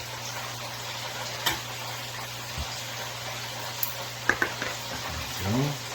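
Bacon-wrapped chicken tenders sizzling as they cook, over a steady low hum, with a few sharp clicks of a utensil at about a second and a half and again past four seconds, and a brief hum of voice near the end.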